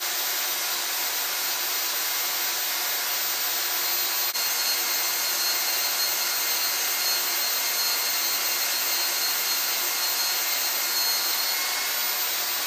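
Milwaukee portable band saw running steadily, its blade cutting through a small block of 4140 steel. The noise stays even throughout, with a faint high whine over it.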